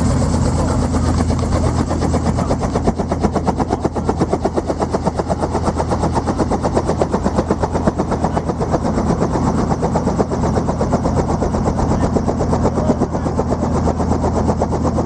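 Small helicopter idling on the ground with its main rotor turning, close by: a rapid, even chopping of the rotor blades over a steady engine hum.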